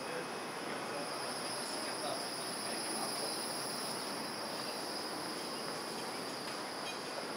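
Low-floor electric tram rolling slowly past at close range: a steady, even running noise with a constant high-pitched hiss or whine above it.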